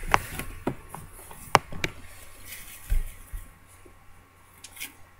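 Handling and movement noise close to the microphone: several sharp clicks and knocks, then two dull low thumps about three seconds in, growing quieter after.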